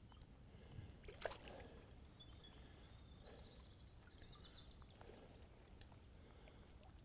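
Near silence outdoors: a faint low rumble of wind on the microphone, with one short sharp knock about a second in and a few faint ticks and water sounds after it.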